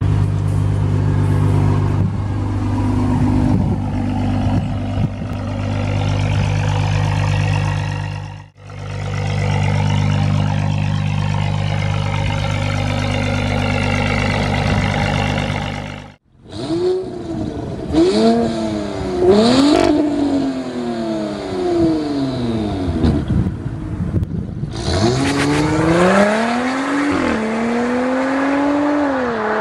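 Porsche Cayenne E-Hybrid's 3.0-litre turbocharged V6 heard through an exhaust with its gasoline particulate filter removed and a 200-cell sport catalytic converter fitted. It idles steadily, is then revved in a series of rising and falling blips, and near the end accelerates hard, the pitch climbing, dropping at gear changes and climbing again.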